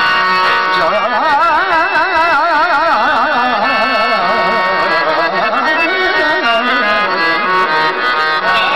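A man singing a long, wavering, ornamented vocal line over a steady harmonium drone; the voice comes in about a second in and eases off near the end.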